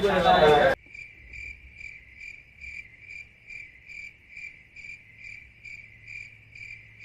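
Cricket chirping in an even, steady rhythm of about two chirps a second. It starts abruptly as a loud voice cuts off under a second in.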